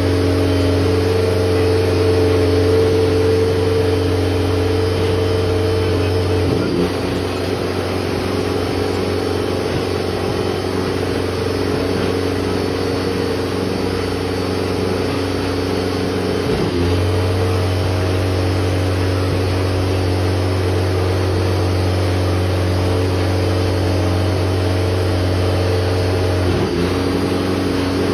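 Porsche 963 hypercar's twin-turbo V8 idling steadily, its low note dropping away and returning at roughly ten-second intervals.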